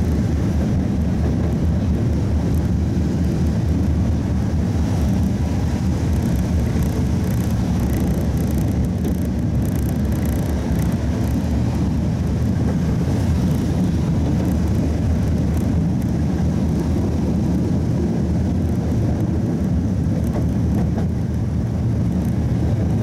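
A coupled pair of Tatra T3 (MTTCh) trams running along the track between stops, heard from aboard: a steady low rumble of the running tram on the rails.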